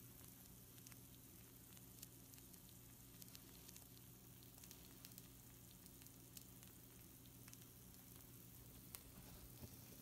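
Pizza rolls sizzling faintly on a hot baking sheet, with scattered tiny crackles and pops over a low steady hum.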